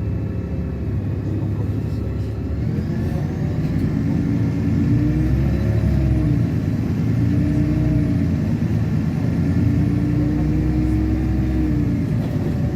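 LiAZ-6213 articulated city bus engine pulling the bus away under acceleration. Its pitch climbs and drops back twice as the automatic gearbox shifts up, once about halfway through and once near the end, over a low rumble of the drivetrain and road.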